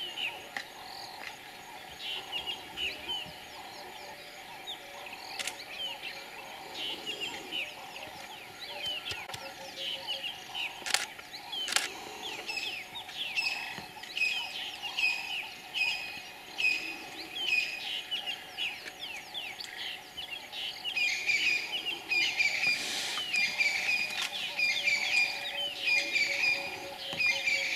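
Wild birds chirping and calling, many short quick notes overlapping, growing busier and louder after about twenty seconds. Two sharp clicks sound about eleven and twelve seconds in.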